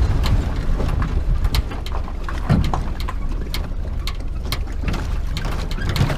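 Sea-Doo 787 two-stroke twin engine running in a home-built jet boat: a steady low rumble, with dense crackling clicks over the microphone.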